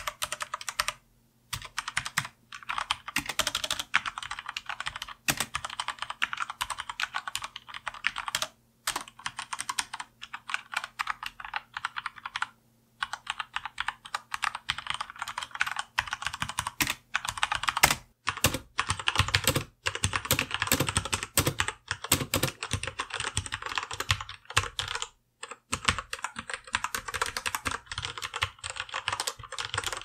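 Fast typing on a Corsair mechanical gaming keyboard with Cherry MX switches: a dense clatter of key strokes with a few brief pauses.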